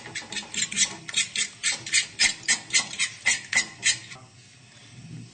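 A fork scraping rhythmically against the bottom of a frying pan as egg is stirred, about four strokes a second; the strokes stop about four seconds in.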